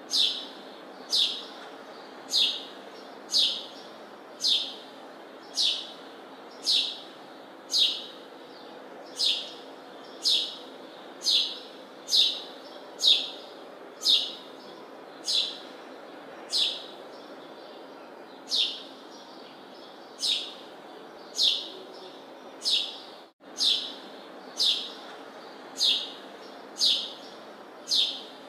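A bird giving one short, high chirp that falls in pitch, repeated very evenly about once a second, over a steady background hum.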